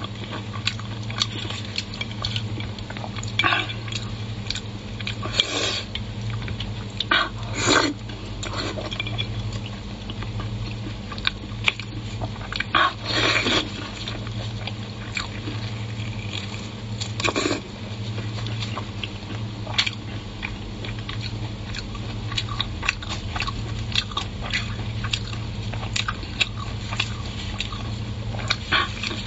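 Close-up eating sounds: wet lip smacks, sucking and chewing as chili-oil-coated meat is torn apart by gloved hands and sucked off the bone, with a few louder slurps. A steady low hum runs underneath.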